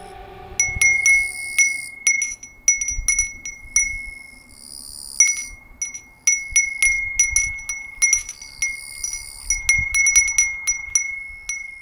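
A small bell ringing over and over in irregular clusters of strikes, each strike ringing on at the same clear pitch.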